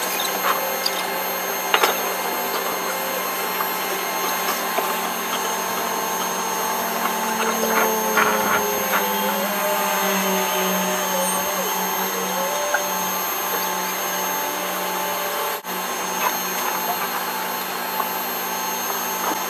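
Steady whining drone of running machinery with scattered clanks and knocks. A lower engine note rises and falls a few times about midway.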